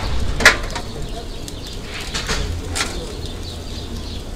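Handling noise as a large raw doner cone on its metal spit is lifted onto a vertical rotisserie: a sharp knock about half a second in, then a few lighter clicks and scrapes, over a steady low rumble.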